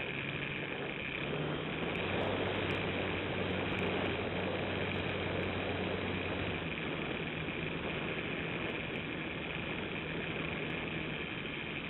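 Model airplane's motor and propeller running steadily, recorded from the plane's own onboard camera, with air rushing past the microphone. The pitch shifts slightly a couple of times, up about a second in and back down a little past the middle.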